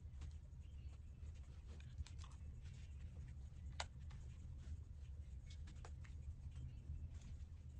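Faint scattered clicks and rustles of a case being fitted onto a compact camera, with a sharper click a little under four seconds in.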